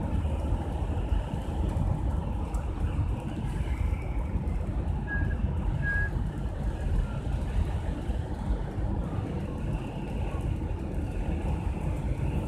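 Steady road noise inside a moving car's cabin: engine and tyres running on a wet highway. Two short faint beeps come about five and six seconds in.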